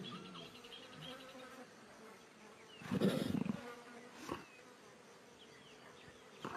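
Insects buzzing steadily in the background. About three seconds in, a brief low animal call rises above them, and a short sharp sound follows a second later.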